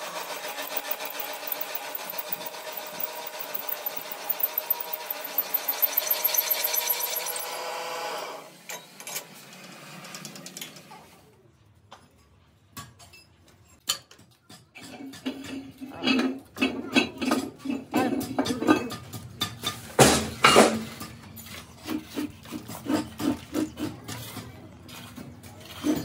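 Drill press drilling the bolt holes in a truck brake drum's flange, running steadily for about eight seconds and then stopping. Then scattered metal clanks and knocks as the heavy drum is turned and handled, the loudest about twenty seconds in.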